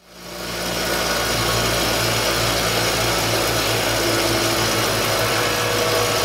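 Bench grinder motor running steadily, its wheel spinning free with nothing against it: a constant hum and whir that fades in at the start.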